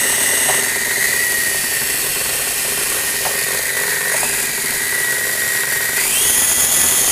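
Small electric motors of a toy helicopter whining steadily, with the hiss of its spinning rotor blades. The pitch dips briefly about a second in and again around four seconds, then climbs near the end as the motors speed up.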